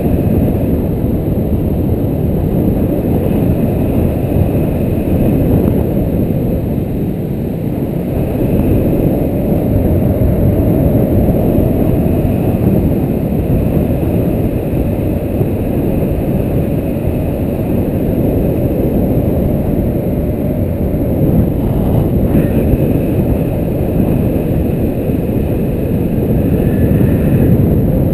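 Wind from the airflow of paragliding flight buffeting the pilot's camera microphone: a loud, steady, low rushing noise.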